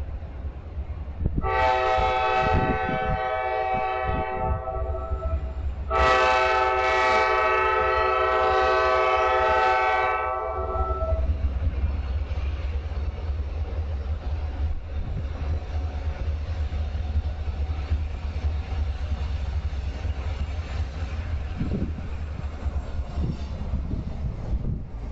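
Horn of a Kansas City Southern F-unit diesel locomotive sounding two long blasts, the first about three seconds long and the second about five seconds long. A steady low rumble of the approaching train runs under the blasts and continues after them.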